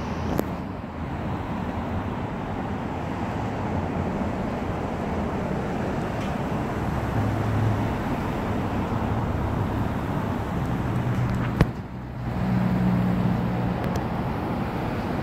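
Steady road traffic: cars going by with a low engine hum that rises and falls. A single sharp click comes a little past eleven seconds in.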